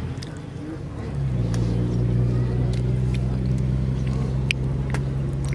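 An engine running steadily with a low hum, getting louder and slightly higher in pitch about a second in, with a few faint clicks over it.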